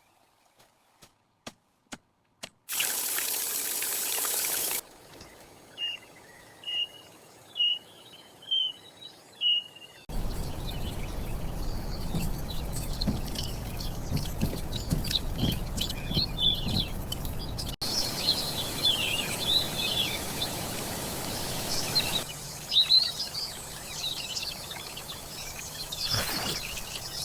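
A few soft clicks and about two seconds of hiss. Then a small bird chirps five times, about once a second, and a steady outdoor ambience follows with birds chirping through it.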